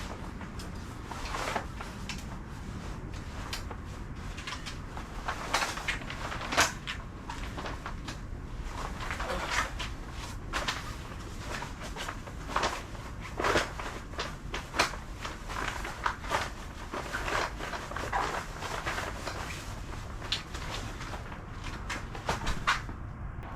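Scattered knocks, clicks and rustles of gear being handled and packed up, over a steady low background rumble.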